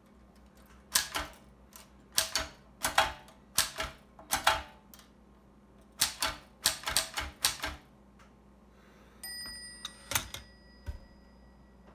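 1887 Caligraph No. 2 typewriter being typed on: sharp clacks of the type bars striking in quick bunches of two to four, a short pause, then a longer run. About nine seconds in comes a short ringing tone, followed by a couple more knocks.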